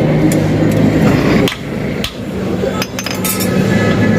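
A blacksmith's hammer striking iron on an anvil: a handful of irregular, ringing blows about a second apart, with a quick pair near the end. A steady low machine hum runs beneath.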